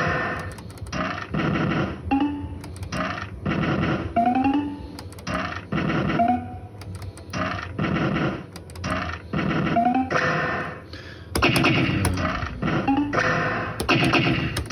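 BWB Volcano fruit machine playing its electronic game music and sound effects: a loud, repeating run of short phrases with rising pitch swoops every couple of seconds.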